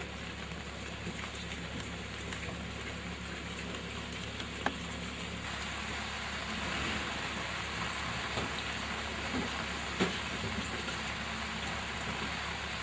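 Steady rain falling, with a low hum underneath and two sharp knocks, one about four and a half seconds in and one about ten seconds in.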